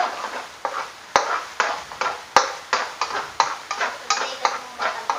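A metal spatula stirring and scraping eggs as they scramble in sizzling oil and blended shallot-garlic paste in a nonstick wok. The strokes come quickly, about three a second, with a couple of sharper clacks of the spatula against the pan.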